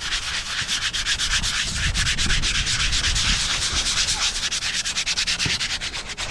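A glazed brake pad being scuffed by hand on coarse 60–80 grit sandpaper in quick, rhythmic back-and-forth strokes, several a second. The rasping resurfaces the pad's glazed, overheated face, a fix for brake squeal.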